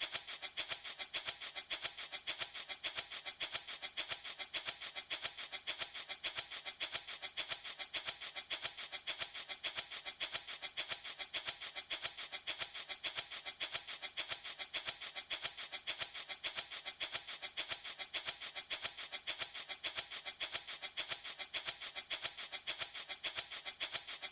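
Handmade baby rattle shaken in a steady, even rhythm, a continuous crisp, hissing rattle of beads or seeds.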